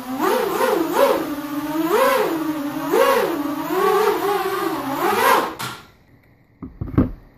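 A small 180-size FPV racing quadcopter's brushless motors and propellers buzzing as it flies low, the pitch swinging up and down about once a second as the throttle is worked. Near the end the motors spin down and stop, and a few knocks follow.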